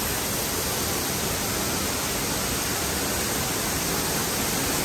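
Steady rushing of falling water, an even hiss with no breaks or changes.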